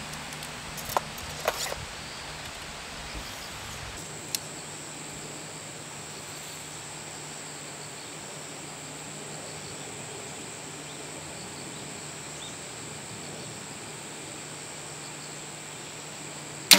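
Steady outdoor ambience with a constant high, thin insect trill over a low hum. A few faint clicks come in the first few seconds, and one loud sharp snap comes at the very end.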